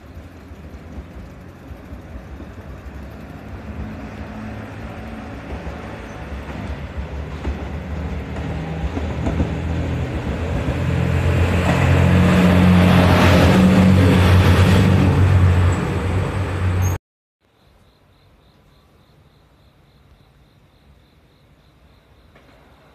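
A JR Shikoku 2700 series diesel train passing close by, its engines growing steadily louder to a peak about twelve seconds in. The sound cuts off suddenly after about seventeen seconds, leaving a faint quiet background with rhythmic insect chirping.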